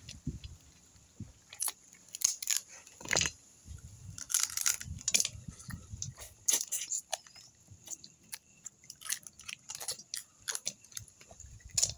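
Cooked crab being eaten: irregular sharp cracks and crunches of the shell being broken open, with wet chewing in between.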